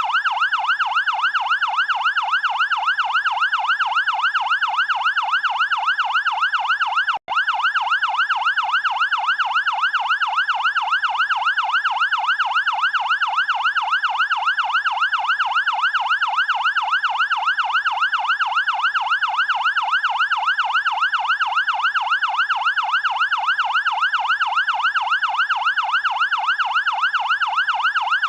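Fire department electronic siren in a fast yelp, its pitch sweeping rapidly up and down about three times a second with perfect regularity. It breaks off for a split second about seven seconds in.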